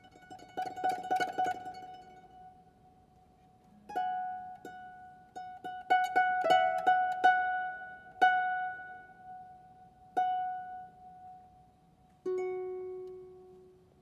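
Solo harp playing a contemporary piece. It opens with a quick flurry of plucked notes, then pauses. From about four seconds in come sparse, repeated plucked notes that ring and fade, and near the end a lower note is left ringing.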